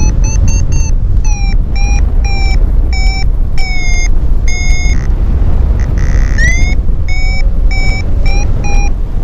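Paragliding variometer beeping about twice a second, its pitch shifting a little from beep to beep, the sign of weak climb in a thermal; a little past halfway it gives a longer tone and a quick rising chirp before the beeps resume. Heavy wind rush on the microphone runs underneath.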